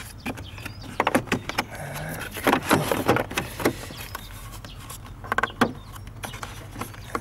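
Hand work on car engine parts: clusters of short clicks, knocks and rattles about a second in, again around three seconds in, and near five and a half seconds, over a low steady hum.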